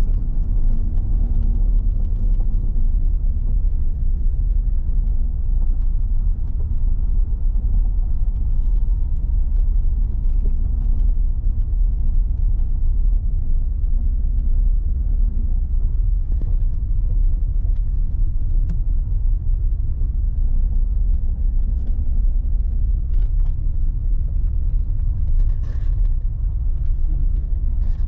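Steady low rumble of a car being driven, road and engine noise heard from inside the cabin, with a few faint knocks.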